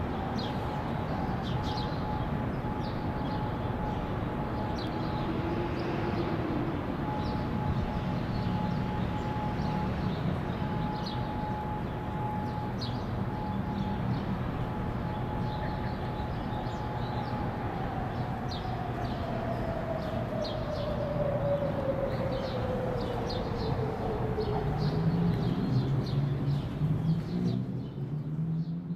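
Federal Signal 2001-130 rotating electromechanical warning siren holding its steady single tone, then winding down, its pitch falling slowly after about 17 s, at the end of a monthly test. Steady traffic noise underneath, birds chirping, and a low engine hum rising near the end.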